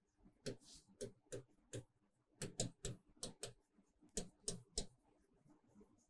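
Faint, irregular sharp ticks of a stylus tip tapping and dragging on a writing tablet as a word is handwritten, a dozen or so clicks in uneven clusters.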